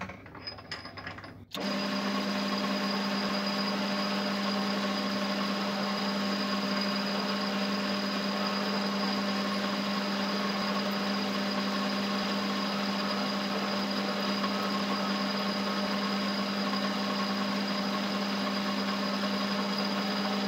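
Small metal lathe switched on about a second and a half in, after a few clicks, then running steadily with an even hum while the cut-off end of the blank is faced clean.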